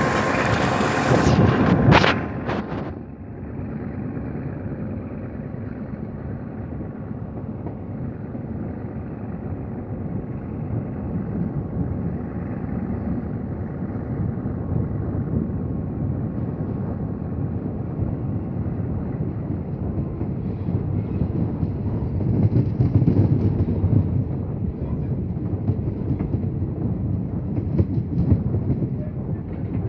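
Passenger train running on the rails, heard from inside a carriage: a loud clatter of several sharp knocks about two seconds in, then a steady, duller low rumble that swells for a couple of seconds past the middle.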